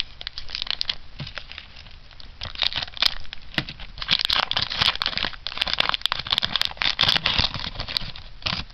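Foil booster-pack wrapper crinkling as hands tear it open and pull it apart, in several louder stretches of crackling.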